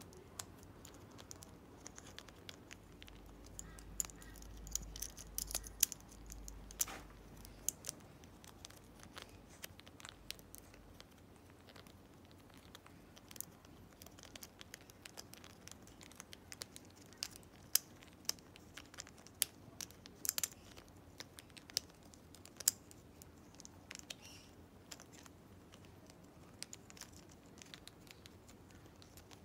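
Amazon parrot chewing a hard plastic foot toy: irregular sharp clicks, crunches and scrapes of beak on plastic, coming in busy flurries with pauses between.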